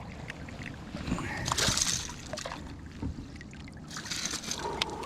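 Water sloshing and trickling against a fishing kayak, with a few light knocks and clicks on the hull. Two brief louder splashes come about a second and a half in and again around four seconds in.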